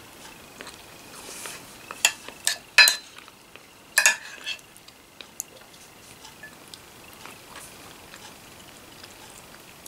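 A spoon clinking and scraping against a soup bowl while eating soup, with several sharp clinks about two to four seconds in, one ringing briefly.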